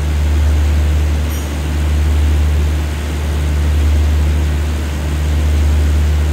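Deep, steady drone of a stationary express train's diesel engines idling, swelling and fading about every two seconds.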